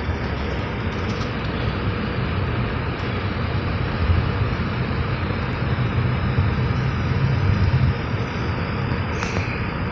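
Steady engine and tyre noise of a car on the move, heard from inside the cabin, getting a little louder about halfway through and easing again near the end.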